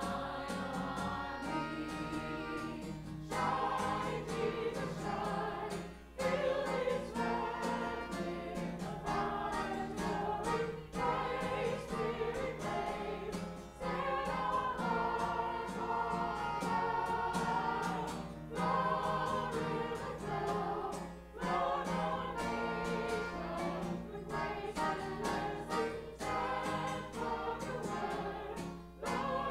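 A small mixed choir of men and women singing together in phrases, with short breaks between phrases every few seconds.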